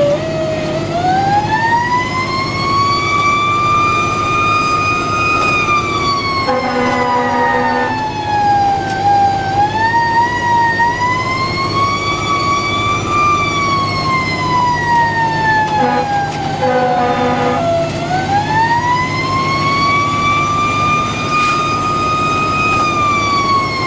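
Federal Q mechanical siren winding up and coasting slowly back down in three long wails, heard from inside a fire squad truck's cab with the truck's engine humming underneath. Twice, about 7 seconds in and again around 16 to 17 seconds in, a horn sounds in short repeated blasts over the siren.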